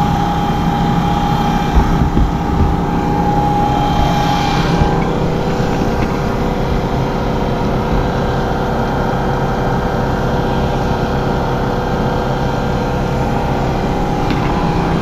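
Vehicle engine running steadily, a constant drone. A thin steady whine sits over it and drops out about four and a half seconds in.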